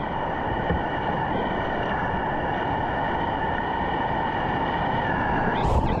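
Whitewater rapids of a concrete whitewater course rushing steadily around the kayak, picked up by a helmet-mounted action camera. A brief surge of hiss comes near the end.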